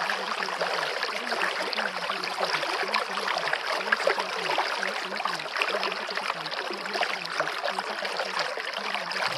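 Steady running water like a stream, with a faint low wavering hum beneath it. This is the masking sound of a subliminal audio track.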